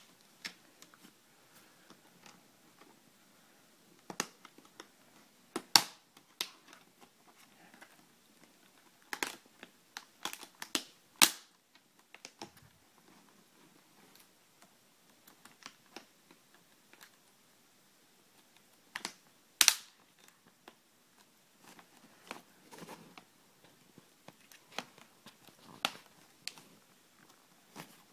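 Plastic snap clips of an MSI GT60 laptop's cover panel above the keyboard clicking into place as it is pressed down by hand. The clicks are irregular and sharp, three of them louder than the rest, with light handling rustle between.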